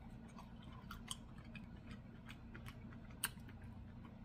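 Faint, scattered wet clicks and smacks of a mouth chewing a piece of seared king trumpet mushroom, with one sharper click about three seconds in, over a low steady hum.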